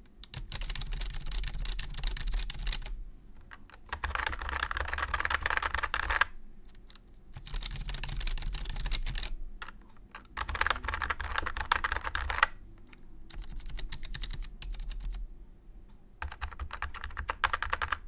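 Typing on two rubber dome keyboards in turn, three short bursts each, starting with a cheap HP rubber dome board. The other is a 1999 Unicomp Model M (58036) whose small, nearly solid domes make a louder, fuller and deeper clatter than a standard rubber dome and bottom out hard.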